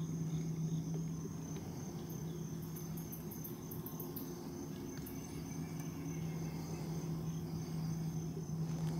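Crickets and other insects trilling steadily, with a short run of quick, high pulsed chirps about a third of the way in. A low steady hum runs underneath and drops out for a few seconds in the middle.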